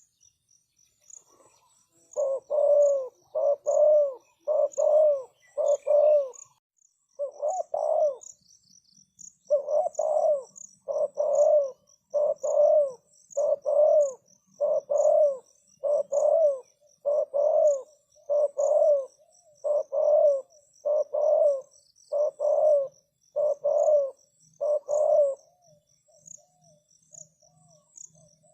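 Spotted dove cooing: a long run of low, repeated coos, about one a second, with a short break after about seven seconds, stopping a few seconds before the end. A steady, fast, high pulsing of insects runs underneath.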